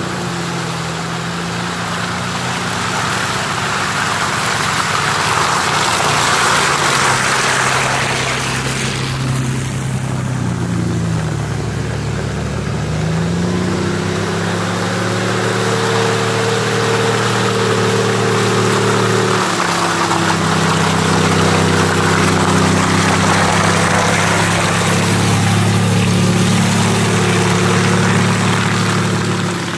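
Engines of Toyota off-road SUVs driving through deep mud, mostly at a steady, low engine speed, with the revs dropping and climbing back about ten to twelve seconds in. A rushing noise of tyres churning through mud and water runs under the engines.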